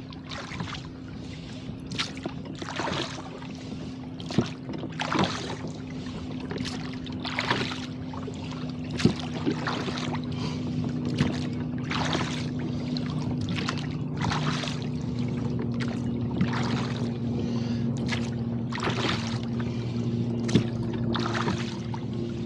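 Rowboat under way in choppy water: water splashing in a steady rhythm of about one swish a second, with a few sharp knocks. A steady low hum runs underneath.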